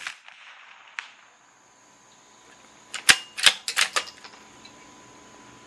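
CZ 457 .22 LR bolt-action rifle being cycled: a quick run of sharp metallic clicks about three seconds in as the bolt is lifted, drawn back to eject the spent case and pushed home on a fresh round. A fainter single click comes about a second in.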